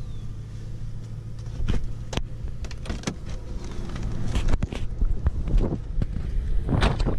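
Lexus GS400's V8, its mufflers cut out, running with a steady low hum, with scattered light clicks and knocks over it; the engine gets louder in the second half.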